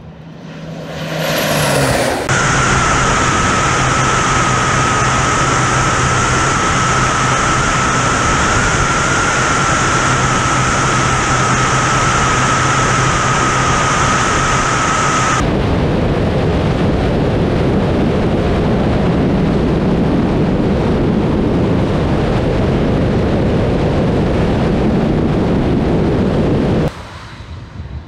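Crop-spraying airplane sweeping low past with a quick falling whine, then its engine heard up close, a loud steady whine and hum over rushing wind. About halfway through, the whine drops out and a steady roar of wind and engine noise carries on, falling away abruptly near the end.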